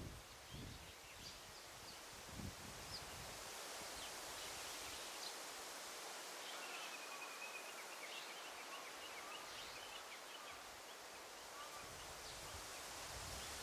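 Faint daytime forest ambience with small birds calling: scattered short chirps, and a warbling call from about six to nine seconds in. A few soft low rumbles come near the start and again near the end.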